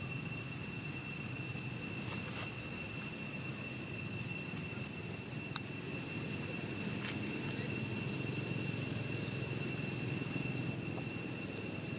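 Steady outdoor background noise: a low rumble with a constant high-pitched whine over it, and a single sharp click about five and a half seconds in.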